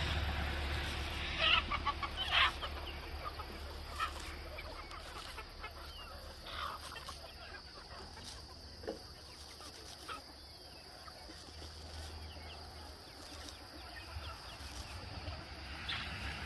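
A flock of chickens clucking, with short calls scattered through, the loudest about one and a half and two and a half seconds in.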